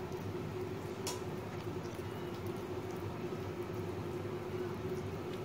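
A steady low hum throughout, with faint soft sticky clicks of oiled hands folding and squeezing soft dough over a plastic bowl; one sharper click about a second in.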